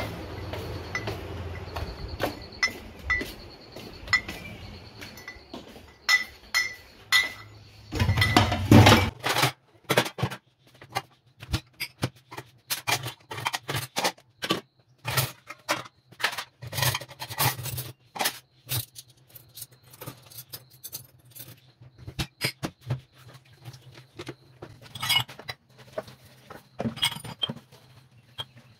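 Dishes being washed by hand at a kitchen sink: cups, bowls and a metal pot clink and knock against each other in scattered, irregular strikes. It opens with a run of light, evenly spaced clinks, and there is a short louder rustling noise about eight seconds in.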